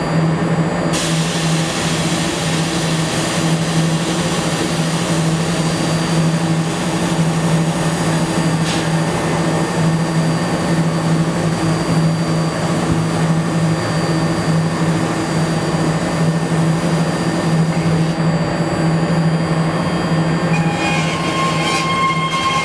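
BART train standing at the platform, a steady low hum from its onboard equipment with an even hiss over it. Near the end, higher steady tones join in.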